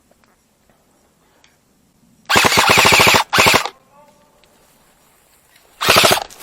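Airsoft electric rifle firing full-auto bursts, a rapid rattle of shots: one burst of about a second, a short burst right after it, and another short burst near the end.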